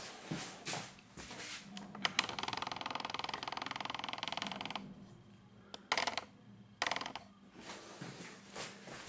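A texturing comb scraping through wet artex on a wall: short rasping strokes at first, then a fast rattling rasp for about two and a half seconds, a few sharp clicks, and more short strokes near the end.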